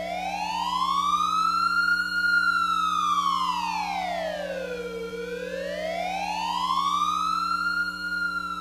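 Wailing alert siren slowly rising and falling in pitch, reaching its top twice about six seconds apart, over a steady low hum.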